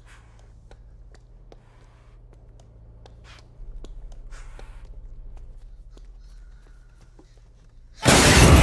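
A tense lull: a low steady rumble with scattered soft clicks and a few brief breathy hisses. About eight seconds in, a sudden loud crash as a deer slams into the car.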